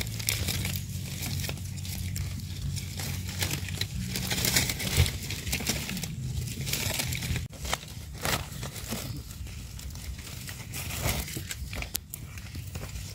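Dry leaf litter crackling and rustling as it is disturbed, with a sharper crunch about five seconds in.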